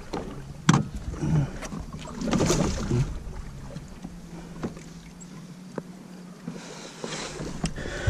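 Scattered knocks and rustling on a fishing boat's floor as a landed channel catfish is handled in a landing net, with a louder scuffle about two and a half seconds in.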